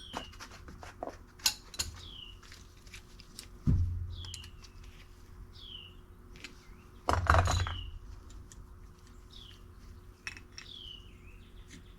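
Small metal brake caliper parts clicking and clinking as the parking-brake actuator pieces are worked into line, with two heavier knocks about four and seven seconds in. A bird chirps repeatedly in the background, short falling chirps.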